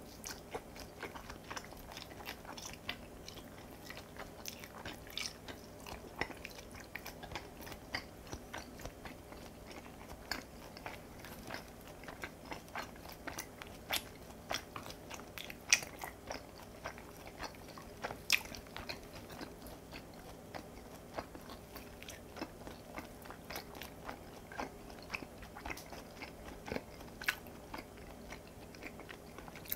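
Close-miked chewing of raw beef and cabbage kimchi: irregular wet mouth clicks and crunches.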